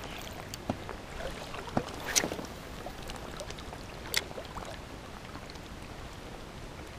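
Casting and then reeling in a spoon with a spinning rod and reel from a float tube: a few light clicks and knocks from the rod and reel, the loudest about two seconds in and again about four seconds in, over a steady faint hiss of water and air.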